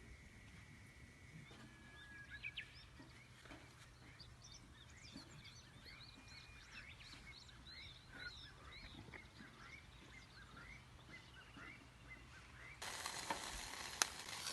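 A bird calls over and over in short rising-and-falling chirps, about two a second, faint against the background. Near the end a loud sizzle of food frying starts suddenly.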